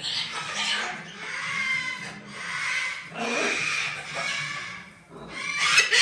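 A macaw vocalizing: a run of rough, noisy calls of about a second each, one after another, with the last one near the end the loudest.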